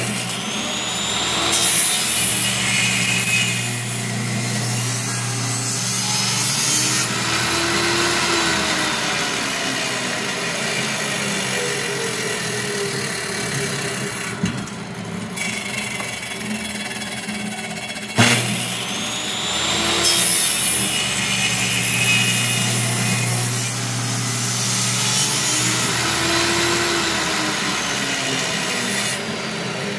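Table saw running and cutting wooden blanks pushed through on a small-parts sled, two long cuts in a row. A short knock about 18 s in comes before the second cut.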